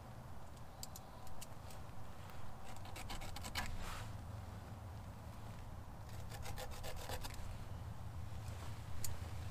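Hand work on a bench of lashed wooden poles: intermittent scraping and rubbing of wood with small clicks, busiest about three seconds in and again about six seconds in.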